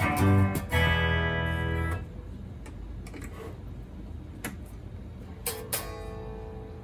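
Guitar played through a 1973 Fender Twin Reverb silverface tube amp on test: a quick run of plucked notes, a pause with a few faint clicks, then a single note struck about five and a half seconds in that rings on.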